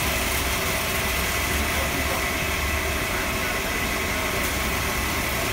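Automatic car wash tunnel running: a steady low mechanical rumble under a constant hiss of water spray.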